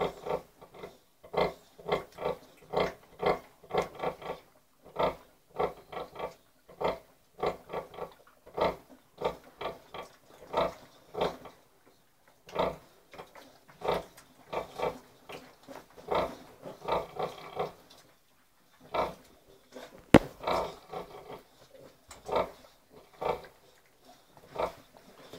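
Sow grunting in a steady run of short grunts, about two to three a second, while her two-week-old piglets suckle: the rhythmic nursing grunts a sow makes at feeding. The grunting pauses briefly twice, and a single sharp click sounds about twenty seconds in.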